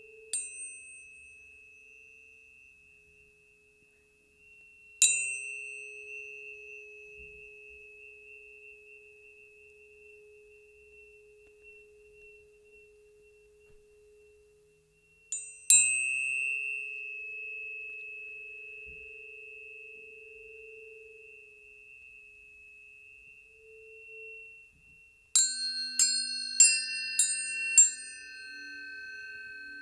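Tuning forks tuned to planetary frequencies, struck and left ringing: a low tone and a high tone sound together and slowly die away. Single strikes come several seconds apart, then a quick run of about six strikes near the end brings in further tones.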